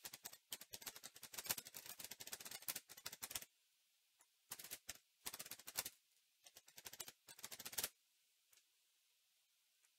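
Faint typing on a computer keyboard: rapid key clicks in one long run of about three and a half seconds, then three shorter runs, stopping about eight seconds in.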